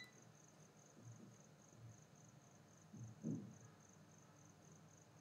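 Near silence: quiet room tone with a faint, high-pitched chirping that pulses evenly several times a second, and a soft low sound about three seconds in.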